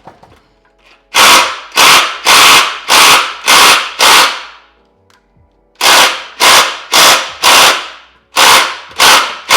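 Impact wrench hammering in short trigger pulls, about two a second, in two runs with a pause about halfway, working at a stubborn exhaust bolt that is at risk of snapping.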